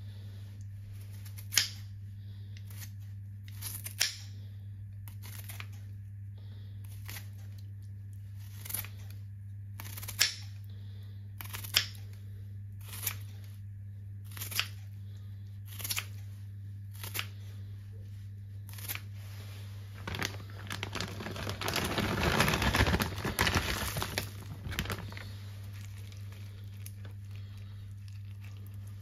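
Kitchen scissors snipping slices off a piece of fresh ginger, one sharp snip every second or two. About 20 s in, a few seconds of rustling as a handful of shredded ingredients is handled and dropped into the pot.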